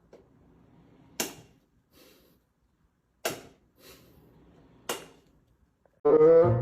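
Three sharp, sudden swish-like sounds, each fading quickly, about a second and a half to two seconds apart; brass music comes in near the end.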